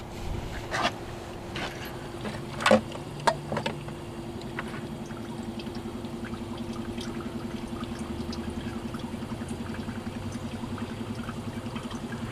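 Electric booster pump of a bucket reverse osmosis water filter running with a steady, fast-pulsing hum after being switched on, with a few clicks and knocks in the first few seconds. Water trickles from the outlet tube into a cup.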